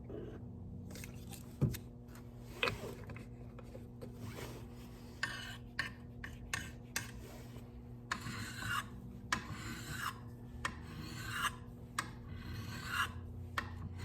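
Sharpening stone stroked along the blade of a pair of garden shears, a repeated rasping scrape that comes in short strokes, more regular and about one and a half a second in the second half, honing an edge that has just been ground on a bench grinder.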